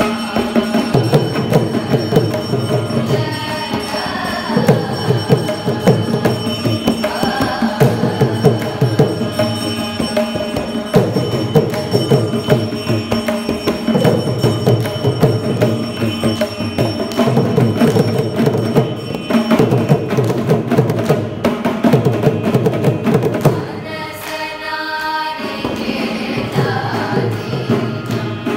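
Carnatic group singing in unison, accompanied by mridangam strokes and violin over a steady sruti box drone. The mridangam plays densely and drops out briefly about 24 seconds in, leaving the melody alone for a moment before it comes back.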